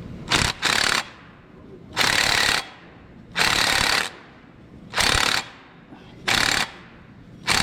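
Ratcheting wrench clicking in repeated short strokes, about seven in all, roughly one every second and a half, as a belt tensioner bolt is tightened by hand.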